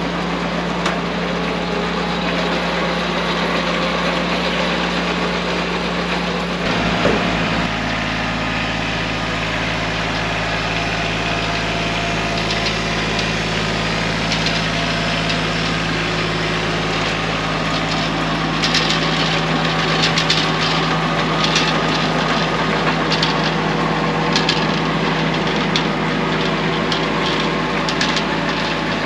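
Kubota compact tractor engine running steadily while it pulls a hay implement through the field. The engine note shifts about seven seconds in. In the second half, quick irregular metallic ticks and clatter from the machinery ride over the engine.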